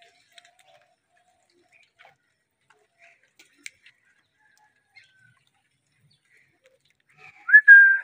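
Rose-ringed parakeet (Indian ringneck) making faint soft chirps and clicks, then near the end a loud whistled call that rises and then holds one pitch.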